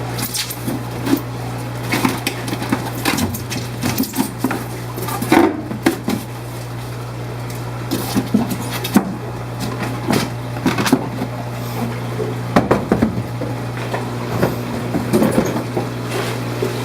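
Irregular clicks, knocks and light clatter of shipping bags and plastic containers being handled, over a steady low hum.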